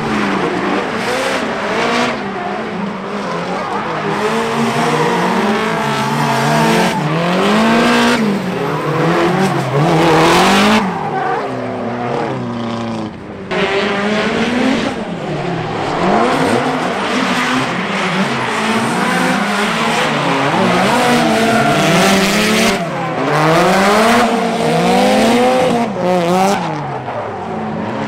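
Drift cars on track, engines revving up and down over and over through the slides, with tyres squealing. Loud throughout, with a brief lull about halfway through.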